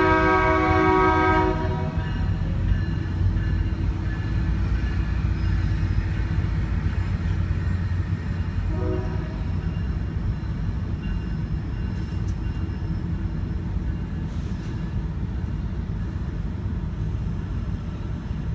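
Tri-Rail commuter train's horn sounding a chord of several notes that stops about a second and a half in, followed by the steady low rumble of the train rolling past. A brief, weaker horn note comes about nine seconds in, and the rumble fades slightly toward the end.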